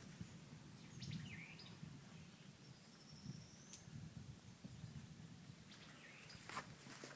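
Near-silent ambience with a few faint bird calls: a short dipping call about a second in, and a thin rising whistle around three to four seconds in.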